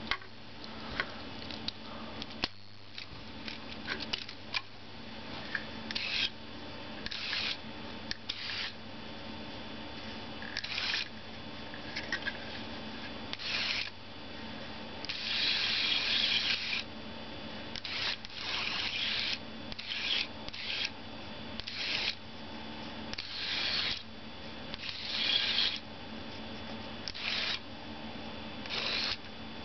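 Mattel Stealth Rides mini RC car's tiny electric motor whirring in many short bursts as it drives in spurts across a tabletop, with one longer run about halfway through. A steady low hum sits underneath.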